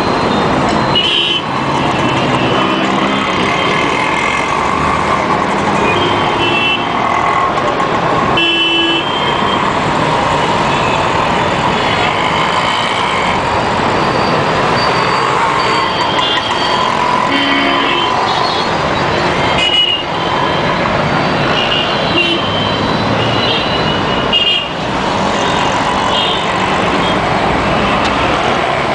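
Dense city traffic of cars, motorbikes and auto-rickshaws, engines running steadily, with frequent short horn honks from many vehicles.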